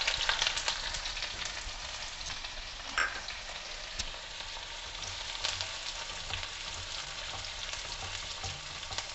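Diced onion sizzling in hot oil in a kadai, loudest just as it goes in and then settling to a steady frying hiss. A couple of light clicks come a few seconds in, and a slotted spoon stirs the onion near the end.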